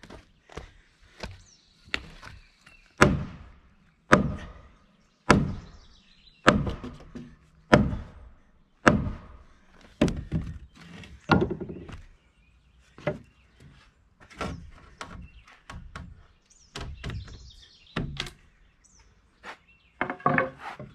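Heavy hammer blows on timber, a steady run of about one strike a second, followed by lighter, irregular knocks on wood, typical of driving mortise-and-tenon joints together in a timber frame.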